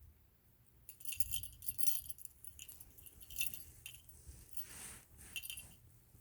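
Light metallic jingling and rattling in irregular bursts, starting about a second in.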